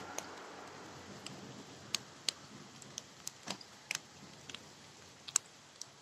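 Light rain: scattered raindrops tick sharply and irregularly, a dozen or so, over a faint steady hiss.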